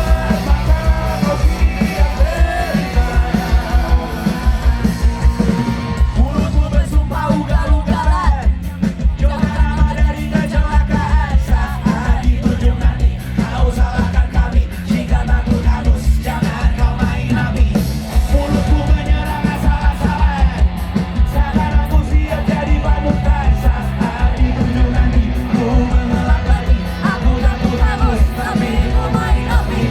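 Loud rock music, punk-like, with sung and shouted vocals over a fast, steady drum beat.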